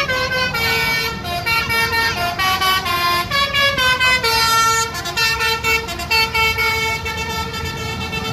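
Agra Mas bus's telolet 'basuri' horn playing a melody of held notes that step up and down, over a steady low rumble of engines and traffic.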